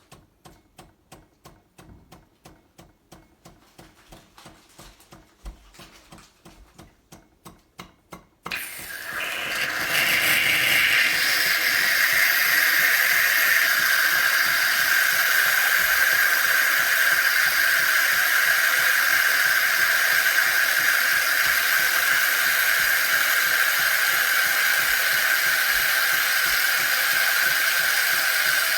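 Saeco PicoBaristo super-automatic espresso machine working: its pump pulses about three times a second, growing louder. A little over eight seconds in, a loud, steady hiss of steam starts and keeps on.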